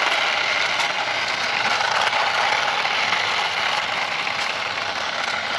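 Toy RC cars' small electric motors and plastic gearboxes running, a steady whirring rattle.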